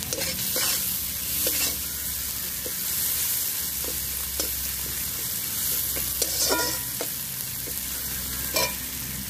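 Sliced onions sizzling in hot oil in a large iron kadai as a metal spatula stirs them, with a few sharp scrapes of the spatula against the pan every second or two.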